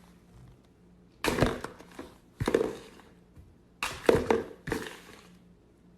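Several sudden impact sounds, roughly a second apart, each dying away within about half a second.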